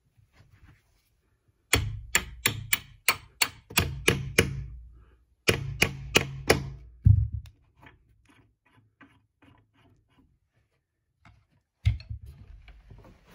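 Claw hammer tapping a steel door hinge pin down through a hinge pin doorstop, metal on metal: a quick run of about a dozen light strikes, a short pause, then four or five more and a heavier knock. Faint light ticks follow, and there is one more knock near the end.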